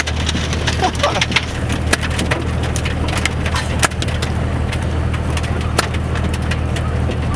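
A vehicle's engine running steadily under dense, irregular crackling from a hand-held firework.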